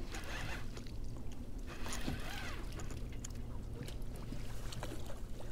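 Fishing boat on the water: a steady low hum, with scattered small clicks and knocks from gear being handled.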